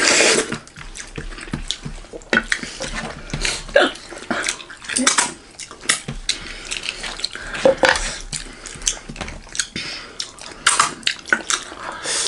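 Close-miked wet eating sounds from people eating goat curry by hand: chewing, lip-smacking and sucking on fingers, coming as irregular short smacks.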